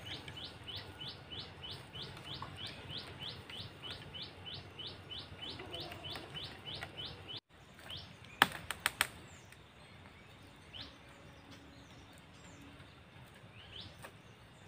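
A bird calling a rapid, even series of short rising chirps, about four a second, that cuts off suddenly about halfway through. A little later comes a quick cluster of about four sharp clicks, the loudest sounds here, followed by a few scattered chirps.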